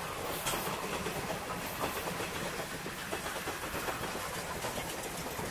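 Steam-hauled passenger train running past and away, its wheels clacking irregularly over the rail joints.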